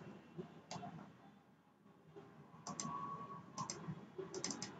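Computer mouse buttons clicking quietly: a single click about a second in, two more clicks near the three- and three-and-a-half-second marks, and a quick run of three or four clicks near the end.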